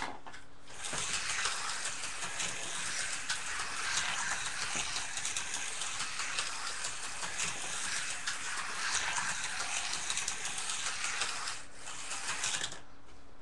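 A slot car running on a plastic track: a steady rattling whir full of fine ticks that starts just after a sharp click and stops about a second and a half before the end, followed by a few light knocks.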